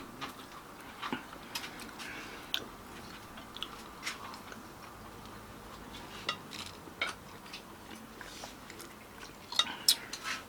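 People eating barbecued chops and chicken wings: faint chewing with scattered small clicks and clinks of cutlery and plates, loudest in a short cluster near the end.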